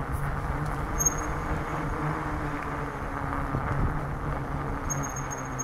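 A bicycle rolling along a wet road: steady tyre and riding noise with a low hum. A thin high-pitched whine comes in briefly about a second in and again near the end.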